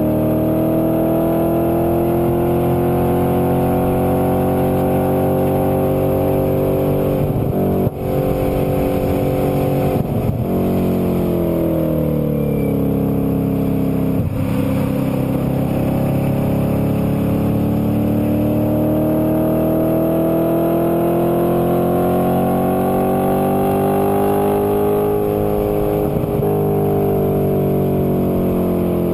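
2008 Audi RS4's 4.2-litre V8 through a Milltek exhaust, heard from inside the cabin at track speed. The engine note climbs slowly, falls away about ten seconds in, then climbs steadily for about ten seconds before easing off near the end.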